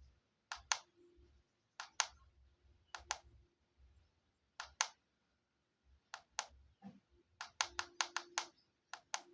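Push button on a MaxBest MB-TM66 Bluetooth speaker being pressed over and over, each press a quick double click of press and release, cycling the speaker's LED light through its modes to off. The presses come about a second apart, then faster near the end.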